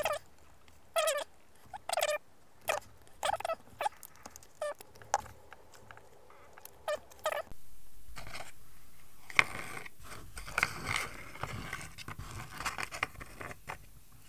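A run of short chirp-like bursts, then light taps, clicks and rustles as a small card model building is handled, turned and set down on a cutting mat.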